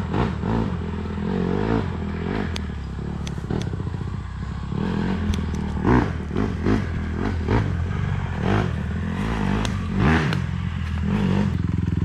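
Small off-road vehicle engine running steadily, with scattered clattering knocks over it.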